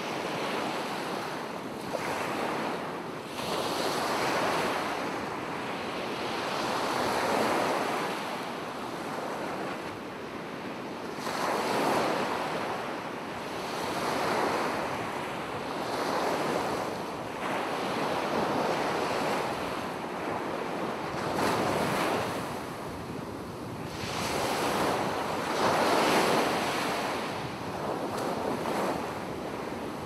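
Ocean surf: waves washing ashore in a steady rush that swells and fades every few seconds.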